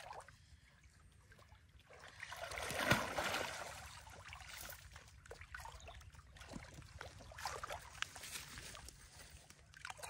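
Water splashing and sloshing as people wade and work by hand in a shallow muddy river, with a louder swell of splashing about three seconds in and small scattered splashes after.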